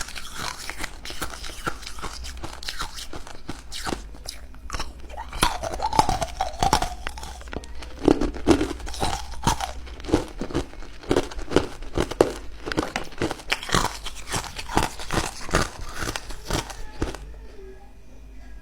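Ice cubes being bitten and chewed close to the microphone: a rapid, uneven run of sharp crunches.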